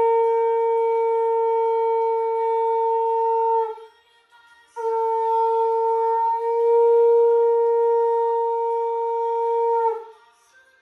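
Conch shell (shankh) blown in two long, steady blasts on one pitch, with a short gap between them. The second blast grows louder partway through.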